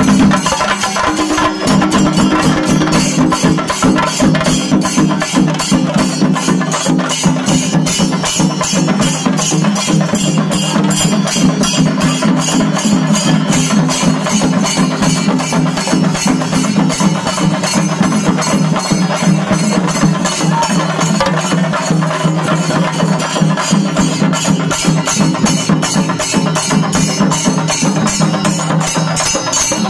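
Singarimelam percussion: chenda drums beaten in a fast, dense, unbroken rhythm, with ilathalam hand cymbals ringing along.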